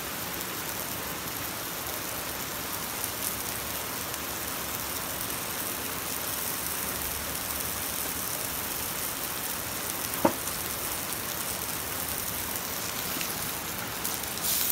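Thin eggplant slices sizzling in hot oil in a frying pan, a steady even hiss. A single sharp click about ten seconds in.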